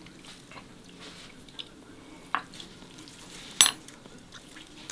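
Cutlery clicking and clinking against a dish while the salad dressing is tasted: a few light taps, a sharper click a little after two seconds, and one sharp, ringing clink about three and a half seconds in.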